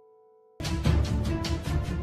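Background music: a soft sustained piano chord fades away, then about half a second in a loud, tense music cue starts abruptly with a fast beat of heavy drum hits.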